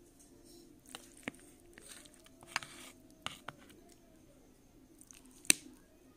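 Steel spoon scraping through dry aloo gobi and clinking against the serving bowl as the curry is stirred and scooped, a handful of sharp clinks with the loudest near the end.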